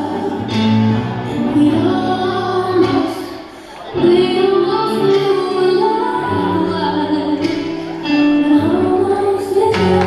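Ballroom dance music with sung vocals playing for the dancers. The music drops away briefly about three and a half seconds in, then comes back in abruptly at full level.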